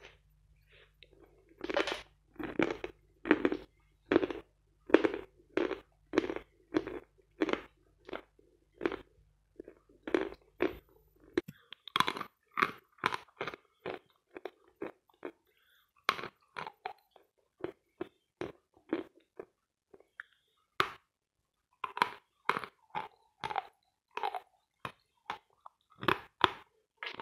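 Dry, powdery Vatutin chalk being chewed and crunched close to a small microphone held against the throat: steady chewing strokes, about one and a half a second, then from about halfway sharper, crisper crunches as more is bitten off and broken up.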